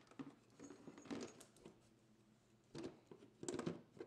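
Quiet handling noises: a few short knocks and rustles as a power inverter and cables are moved about inside a plastic battery box.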